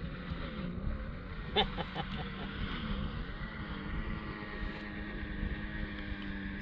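An engine running steadily, its pitch dipping briefly and recovering a few times, with a short knocking clatter about one and a half seconds in.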